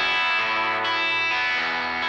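Instrumental background music: sustained chords that change a few times.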